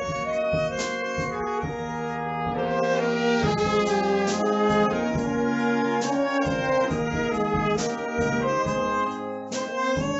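School wind band playing: flutes, saxophones and brass over a drum kit, with sharp drum accents every second or two.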